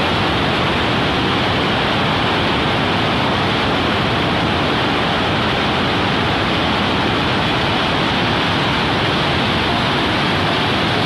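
Water rushing through the open spillway gates of a DVC dam during a water release: a loud, steady, unbroken rush of falling and churning water.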